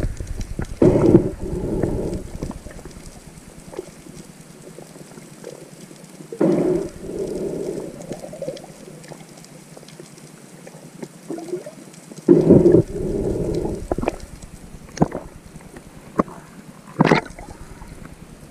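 Underwater sound picked up by a submerged action camera: a faint steady crackle of small ticks, with three muffled surges of sound about a second long, about one, six and a half and twelve and a half seconds in, and a sharp click near the end.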